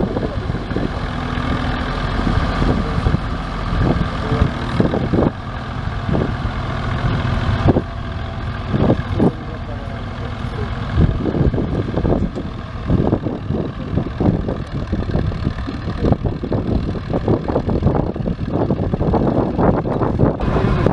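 Zetor 5245 tractor's diesel engine running steadily under load as it pulls a mounted plough through the soil. Many short, irregular thumps sit over the engine sound, more of them in the second half.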